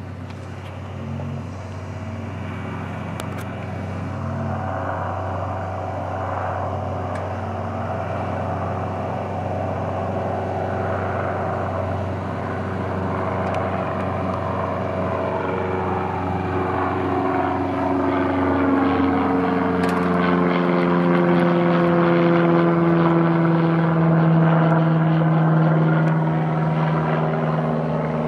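Single-engine Cessna propeller plane flying past overhead: a steady engine and propeller drone that grows louder and then slides down in pitch in the second half as the plane passes.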